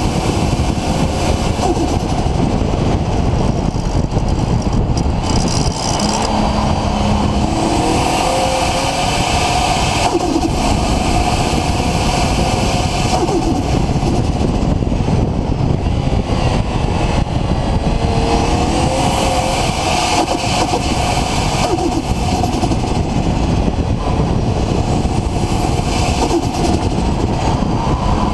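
Nissan RB26 straight-six with a Garrett GTX4088R turbocharger running steadily and loudly, with faint high whistles that rise and fall several times.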